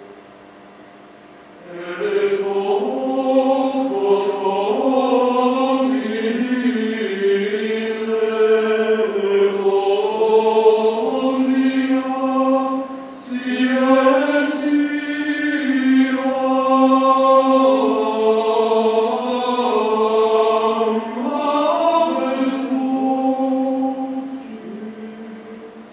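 Gregorian chant: a slow, sustained melody sung in two long phrases. It begins about two seconds in, breaks briefly midway, and fades out near the end.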